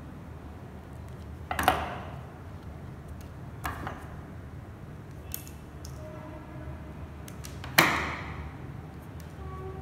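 Small hand wire cutters snipping and stripping a breadboard jumper wire: two loud sharp snaps, one near two seconds in and one near eight seconds, with softer clicks between.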